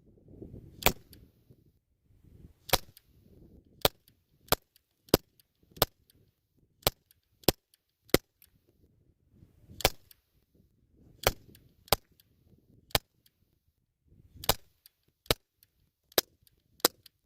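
A canister-powered BB gun fired about seventeen times in quick succession, roughly one sharp shot a second at an uneven pace, with faint handling rustle between shots.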